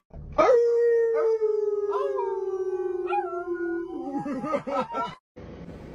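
Dog howling: one long howl held on a single pitch and sinking slowly for over three seconds, then wavering and breaking up before it cuts off.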